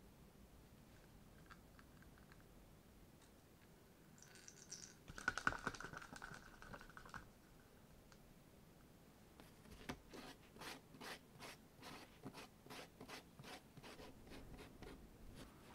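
Faint scraping of a plastic spatula scooping burnishing paste out of a plastic cup, with a short squeak partway through. Then a run of quick scraping strokes, about three a second, as the spatula spreads the paste over the flesh side of the leather.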